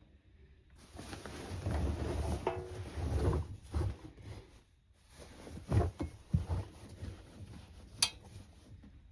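Handling noises at an Indesit IWC6165 washing machine: rustling and clattering for a few seconds, then a few separate knocks and one sharp click about eight seconds in.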